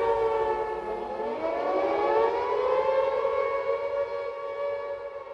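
Civil defense siren wailing as an alert tone: a held tone sagging slightly in pitch, joined about a second in by a second tone that rises and settles alongside it, then holding and slowly fading near the end.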